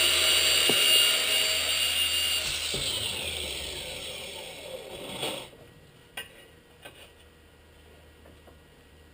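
A high-speed power tool running, then switched off: its whine falls steadily in pitch over about three seconds as it spins down. A short knock follows, then a few light clicks.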